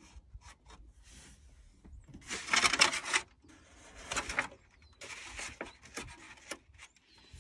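A stiff brown paper template rustling and crinkling as it is handled and lifted, with a few light marker scratches on the paper at first. The loudest rustle comes about two to three seconds in, with more rustling after it.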